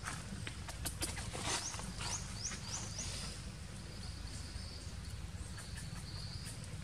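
Outdoor forest ambience with a steady low rumble and a few light clicks. A bird gives four quick rising chirps about two seconds in, then a thin high insect buzz holds steady for about three seconds.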